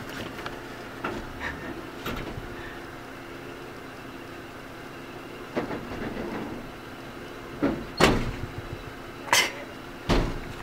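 1994 Ford F-150 pickup engine idling with a steady hum, while a computer chair is handled in the truck bed, giving a few knocks and bangs about eight to ten seconds in.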